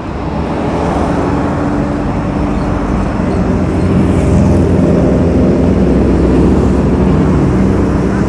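Road traffic close by: a motor vehicle's engine running, growing louder over the first few seconds and holding steady, its pitch falling slightly near the end.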